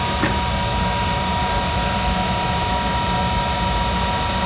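Monarch 10EE lathe running steadily: a constant machine hum with a steady high whine over a low rumble.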